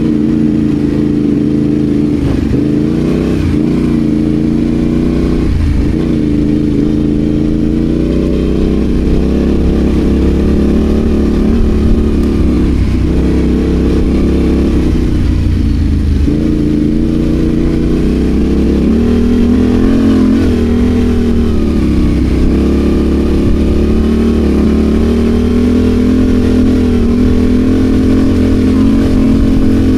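Adventure motorcycle engine running under way, its pitch rising and falling gently as the throttle is opened and eased, over a steady low rumble.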